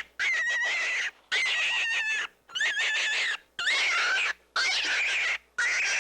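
A farm animal calling: a noisy cry with a wavering high pitch, cut into bursts about a second long with sharp short gaps between them.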